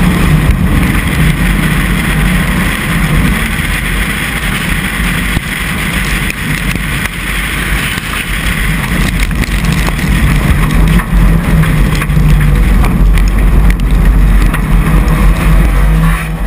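Race car engine running at speed, heard through heavy wind buffeting on the camera microphone, with a deep steady rumble and an engine note that shifts up and down.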